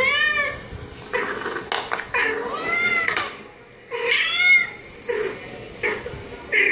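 Cats meowing, played over a television: several drawn-out meows that rise and fall in pitch, the clearest at the start, in the middle and a little past the middle.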